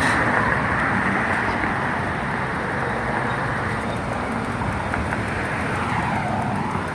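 Road traffic noise: cars passing by, a steady rushing with one passing swell near the end.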